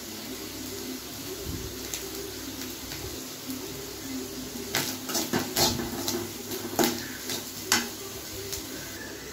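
Steel ladle scraping and clinking against an aluminium kadai while grated coconut and nuts are stirred in ghee: a few scattered sharp clicks, most of them in the second half.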